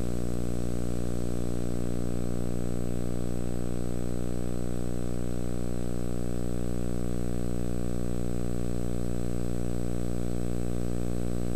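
Steady electrical hum, a low buzz with many evenly spaced overtones that holds at one pitch and level throughout. It is typical of mains hum on an old tape's audio track.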